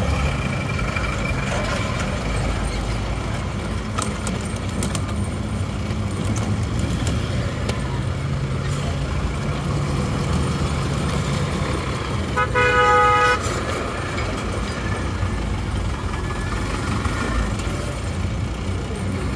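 Busy road traffic with a steady low engine and tyre rumble. A vehicle horn sounds once for about a second, about two-thirds of the way through, and is the loudest sound.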